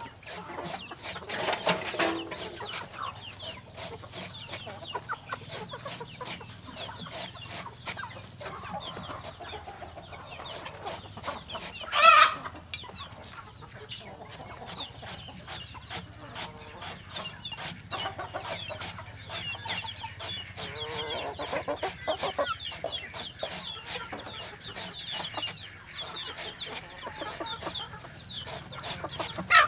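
Flock of chickens clucking over a steady run of sharp taps, with one loud call about twelve seconds in.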